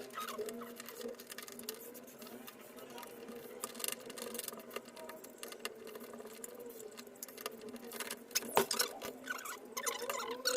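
Small scratchy clicks and rattles of screws being driven by hand into a deadbolt lock's fittings, with a sharper metal click about eight and a half seconds in.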